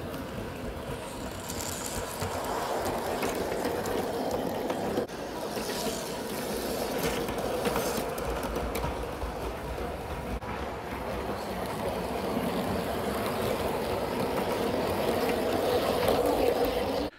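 Bachmann large-scale (G scale) James the Red Engine model locomotive running on its track, a steady whir of motor and gearing with the wheels rumbling along the rails. It grows louder after about two seconds, with an occasional faint click from the track.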